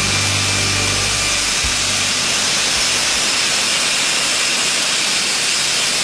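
Shotcrete spray nozzle blasting concrete onto a rock face with compressed air: a loud, steady hissing rush. A low machine hum underneath fades out about halfway, and there are a couple of short low thumps early on.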